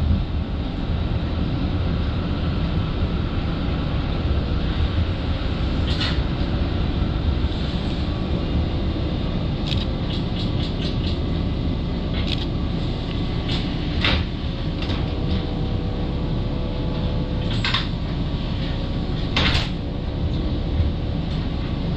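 Toronto streetcar running along its street track, heard from on board: a steady rumble with a faint steady whine, broken by sharp clicks and knocks now and then and a quick run of them about ten seconds in.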